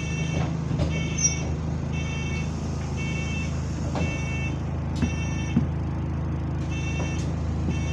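Bus engine running with a steady low drone, heard from inside the passenger cabin; the uploader calls it moany and says the turbo is burst. Over it, a short electronic beep repeats about once a second, with a few light knocks.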